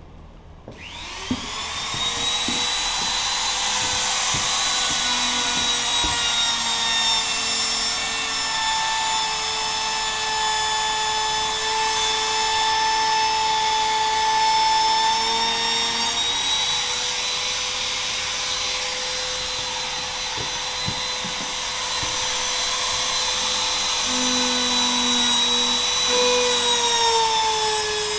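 Electric laminate trimmer (a small router) starting up about a second in, its motor winding up to a steady high whine, then cutting away the overhanging edge of a melamine laminate sheet on a kitchen counter, the pitch sagging a little now and then as the bit bites.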